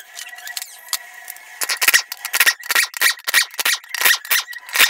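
Air wrench run in quick short bursts, about three a second, on the bolts of a Toyota CVT transmission's oil pump.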